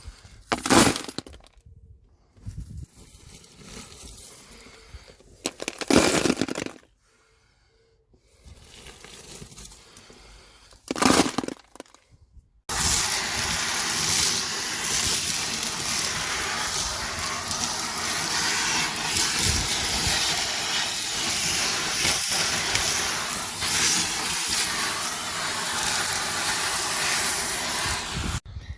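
Car-cleaning equipment running with a loud, steady rushing noise that sets in about halfway through, after a few short, loud bursts of the same kind of noise.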